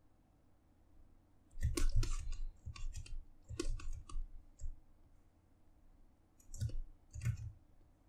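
Rapid clicking and tapping of computer input at a desk, with dull thumps under the clicks. The clicks come in two clusters: a long one from about a second and a half in to nearly five seconds, and a shorter one around seven seconds.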